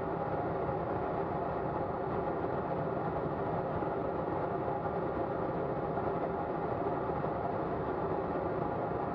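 Steady in-flight cockpit noise of a Colomban Cri-Cri jet: an even rush of airflow with several steady engine tones beneath it, unchanging throughout.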